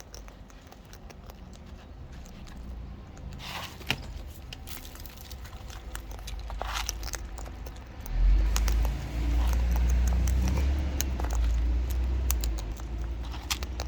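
Cockatoo cracking and chewing seed: a run of small sharp clicks and crunches. About eight seconds in, a loud low rumble starts and runs on over it.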